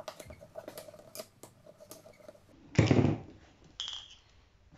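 Small metal clicks and taps as Keihin carburettor parts and a screwdriver are handled, then about three seconds in a single short, loud puff of breath blown through to test whether the new float needle valve seals, followed by one more small click.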